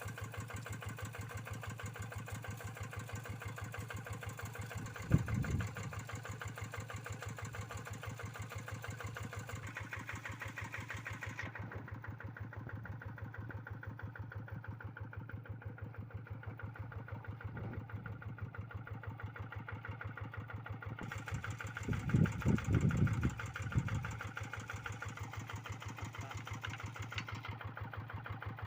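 Kubota RD85DI single-cylinder diesel on a Quick G1000 hand tractor running steadily with an even firing beat. A short loud low thump comes about five seconds in, and a cluster of louder low thumps comes around twenty-two seconds.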